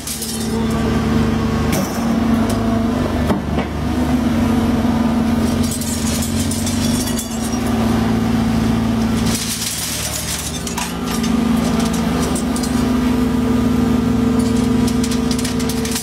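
Taurus 1100-ton hydraulic shear baler working: its hydraulic drive hums steadily under load, easing off about ten seconds in, with short stretches of hiss and metallic clinks as the shear blade lifts and comes back down on scrap rebar.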